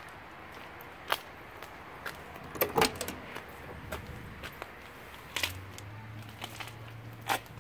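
Steel driver's door of a 1972 Chevrolet Nova being unlatched and swung open: sharp metallic clicks and clunks from the handle and latch, the loudest cluster just under three seconds in, with a few more clicks later. A low steady hum comes in about halfway through.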